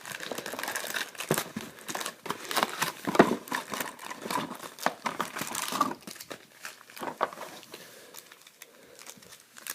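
Plastic trading-card wrapping crinkling and being torn open as a box of cards is unwrapped, busy for about six seconds and then thinning out to a few scattered crackles.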